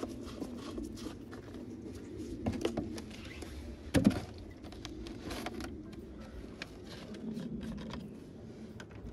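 Rustling and scattered clicks of a plastic jug of coolant being handled and its cap twisted off, with a louder knock about four seconds in.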